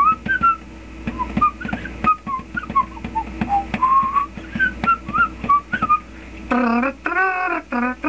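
A man whistling a tune in short, high, hopping notes over a plucked, guitar-like accompaniment. About six and a half seconds in, the whistling stops and a voice starts singing.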